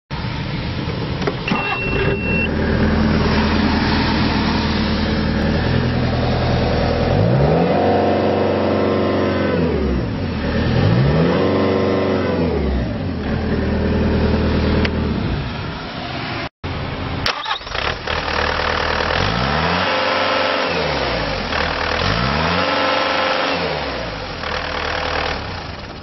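Bobcat T190 skid steer's Kubota four-cylinder diesel running, with a short high beep about two seconds in. The engine is revved up and back down to idle twice, then after a brief break twice more.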